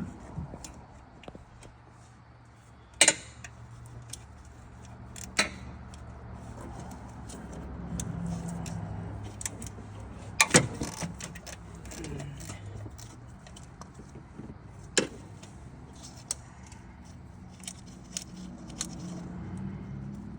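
Metal hand tools and parts clinking and clanking during work on a car engine: several sharp clanks and many lighter ticks, over a low steady hum.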